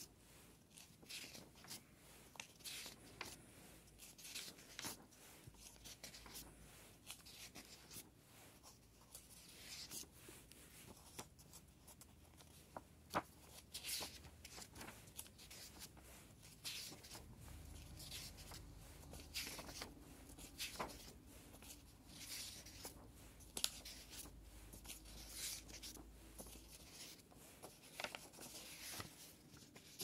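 Paper pages of a thin printed workbook being turned and handled: quiet, repeated rustles and flicks of paper, with a few sharper snaps of a page.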